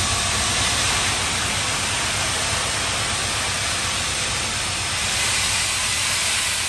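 Steam locomotive Sir Nigel Gresley, an LNER A4 Pacific, venting steam at its front end: a loud, steady hiss with a low rumble beneath.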